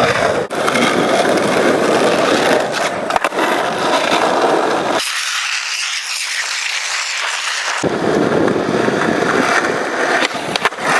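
Skateboard wheels rolling over rough asphalt, a steady gritty rolling noise broken by a few sharp clacks of the board, the loudest near the end. For about three seconds midway the low part of the noise drops away, leaving only a hiss.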